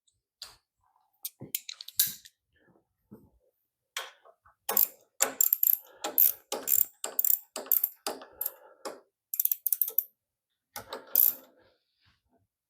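Socket ratchet wrench clicking in quick runs with short pauses as a 1/2-inch nut is tightened down, the clicks busiest through the middle.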